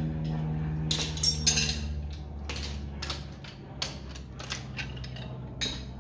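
Steel hand tools and sockets clinking and clattering as a socket extension is picked out and fitted onto a cordless drill, with a steady low hum that stops about three seconds in.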